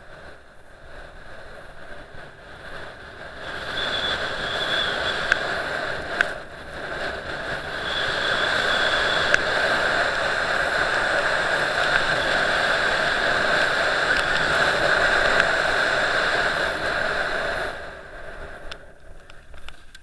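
Skis scraping and hissing over hard-packed, tracked piste snow, with wind rushing over the GoPro's microphone as the skier runs downhill. The noise swells about three seconds in as speed builds, carries a few sharp ticks, and drops off near the end as the skier slows to a stop.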